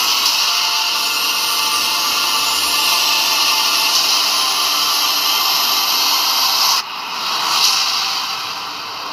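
Bugatti Chiron's quad-turbo W16 engine at full throttle near 400 km/h, buried in heavy wind and tyre noise. About two-thirds in, the sound cuts abruptly to a lower level, swells briefly and then fades as the car slows down from top speed.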